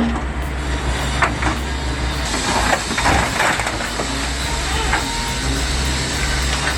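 Excavator engine running steadily while its car-dismantling pincers tear into a car body, with irregular crunches and clanks of sheet metal over the drone.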